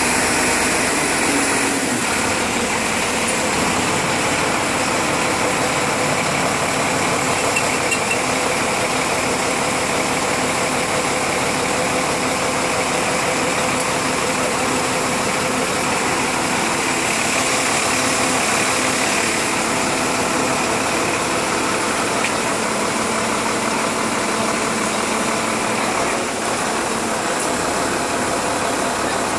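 A motor engine running steadily at an even level, with no change in speed.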